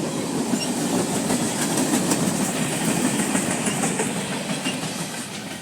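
CSX freight train rolling past, a steady rumble of the cars with clicking of wheels over rail joints, fading near the end as the train moves off.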